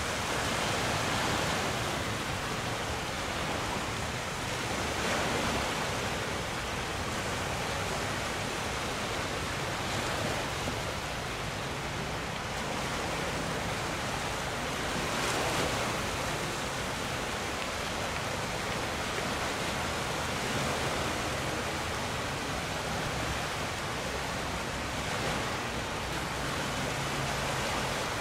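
Steady rushing of wind and water on a sailing boat, swelling a little every few seconds.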